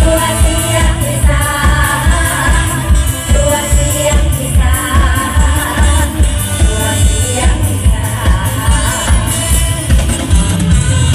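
Live Isan stage-show music: singers over an amplified band with a heavy, steady beat about twice a second.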